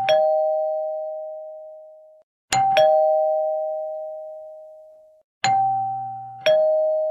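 Two-tone ding-dong doorbell chime, a higher note then a lower one, rung three times, each note ringing out and fading slowly.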